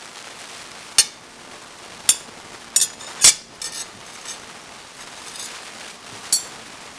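Metal table knife clinking and tapping against a ceramic plate while butter is spread on pancakes: a handful of sharp clicks, the loudest a little after three seconds in, over a steady background hiss.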